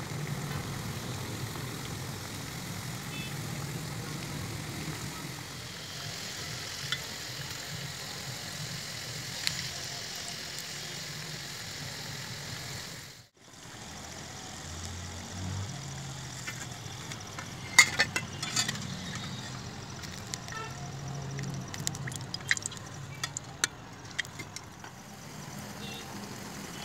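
Samosas deep-frying in hot oil in a metal kadhai, a steady sizzle over a low hum. In the second half, a scatter of sharp clicks comes from a slotted spoon working in the pan.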